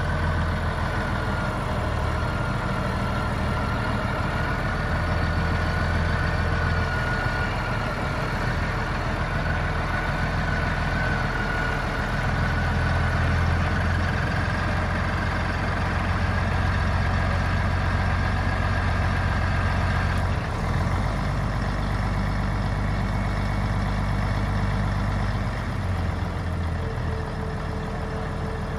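Case 4890 tractor's Scania 300 hp diesel engine running steadily, with a high whine over the low engine note that stops about twenty seconds in.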